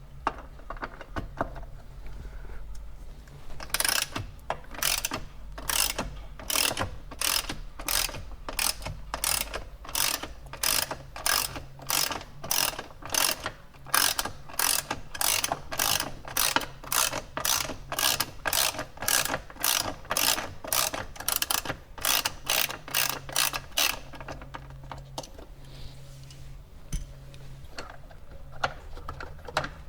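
Socket ratchet clicking in quick, even strokes, about two a second, while a T50 Torx bolt on a seatbelt height adjuster is backed out. The clicking stops about two-thirds of the way through, and fainter clicks follow.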